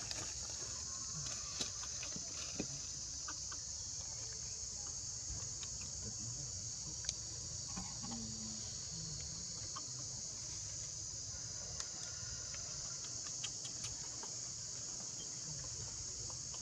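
Steady high-pitched chorus of forest insects, with a few faint clicks scattered through it.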